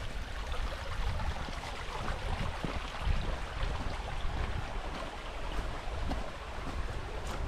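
Wind buffeting the microphone with an uneven low rumble, over the steady rush of a small hill stream.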